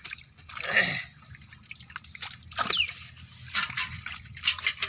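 Water dripping and splashing as fish are picked out of a wet fishing net heaped with leaves in shallow water: many short irregular drips and slaps, with a louder splash about a second in.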